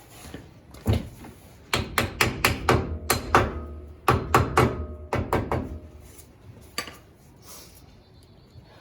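A hammer tapping the metal dust cap into the rear hub, a single blow and then two quick runs of about half a dozen blows each, with a brief metallic ring after the strikes.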